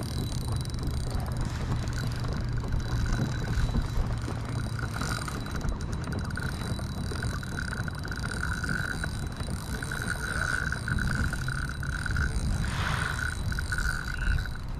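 Shimano Sedona spinning reel's drag buzzing in bursts of a second or two as a heavy mulloway takes line, over a steady low hum.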